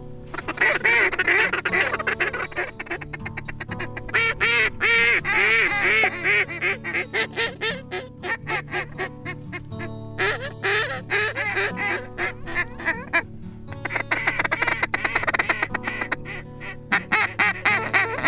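Hand-held duck call blown in long, rapid runs of loud quacks, with a short lull about two-thirds through, calling to ducks flying overhead.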